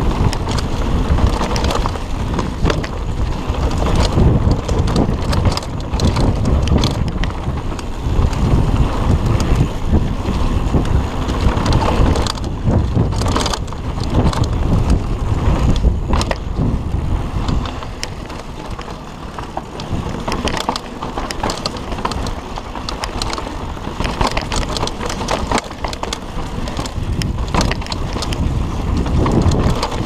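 Mountain bike running fast down a dirt trail: heavy wind noise on the microphone, with tyres crunching over dirt and the bike rattling and knocking over bumps throughout.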